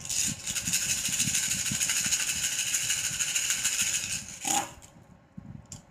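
A handful of cowrie shells shaken in cupped hands for divination, a fast, continuous clicking rattle that stops after about four seconds.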